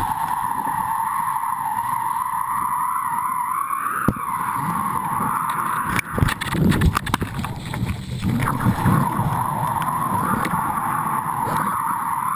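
Steady wind rushing over an action camera's microphone as a kiteboard planes across choppy water. About halfway through comes a louder stretch of splashing and knocking as the board carves through spray.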